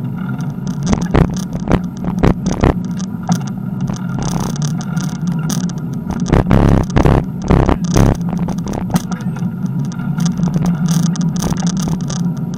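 Riding a bicycle on an asphalt path, recorded from the bike: a steady rush of wind and tyre noise with frequent irregular rattles and knocks from the bike and camera mount over bumps.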